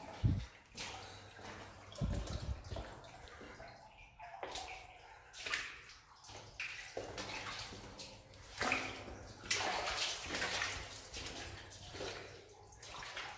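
Footsteps wading through shallow water on a flooded mine tunnel floor, splashing and sloshing about once a second, with a dull low thump just after the start.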